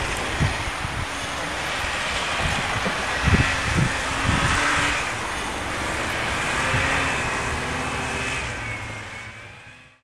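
Snowmobile engine running as the sled rides past, its whine rising and falling in pitch, with a few low thuds about midway. The sound fades out near the end.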